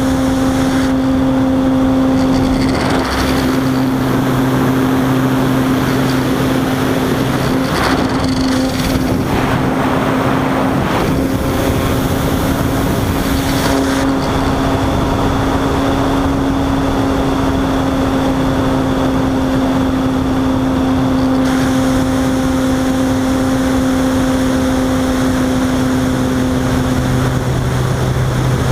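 Onboard sound of a radio-controlled model glider in flight: a steady motor-and-propeller drone over rushing air noise. The steady drone stops near the end.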